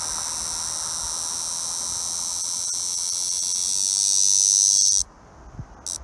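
Ko-ezo-zemi cicada (Lyristes bihamatus) buzzing loudly in a steady, high drone that swells over a couple of seconds and then cuts off suddenly about five seconds in. It gives one brief buzz just before the end.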